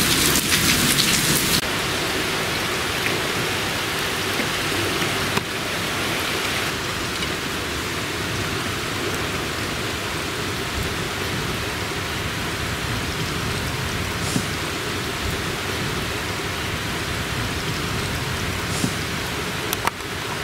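Steady rain falling, heavier for the first second or so, then an even patter, with a few sharp ticks near the end.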